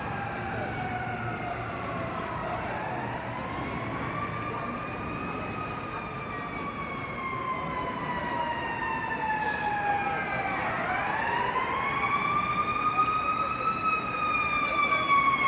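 An emergency vehicle siren wailing, its pitch rising and falling in long slow sweeps, with a second wail overlapping it; the sirens grow louder near the end.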